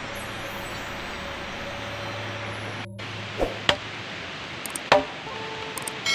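Steady background hiss, then a machete chopping wood: three sharp strikes in the second half, the last the loudest.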